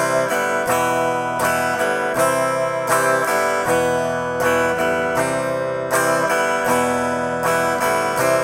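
Guitar strummed in a steady down, down, up pattern at a brisk tempo, switching back and forth between E minor and C chords. On each up-strum the fretting fingers lift off, so open strings ring briefly across the chord change.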